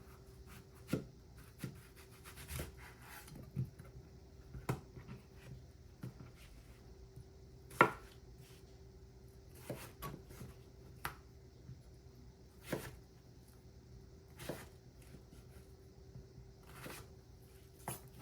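Knife cutting vegetables on a cutting board: irregular single strokes, roughly one every second or so, with one louder strike about halfway through.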